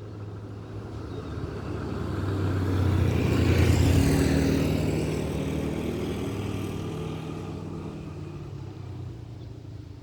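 A motor vehicle passing by, its engine hum growing louder to a peak about four seconds in and then slowly fading.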